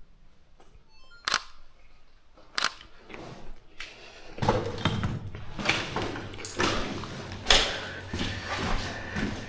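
Two sharp clicks a little over a second apart in near quiet, then footsteps on a gritty floor, about one step a second.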